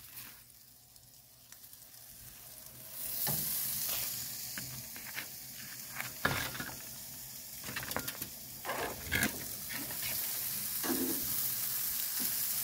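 Raw steak sizzling on hot grill grates: a steady high sizzle starts about three seconds in as the meat goes down and keeps on, with short clicks of metal tongs.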